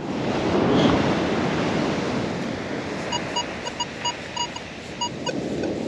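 Ocean surf hiss, swelling in the first second. From about halfway, a Minelab metal detector gives short, evenly repeated beeps, about three a second, as its coil sweeps back and forth over a target.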